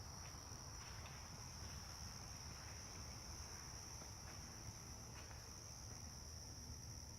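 Faint, steady high-pitched trilling of insects in an outdoor chorus, with a low background hum beneath it.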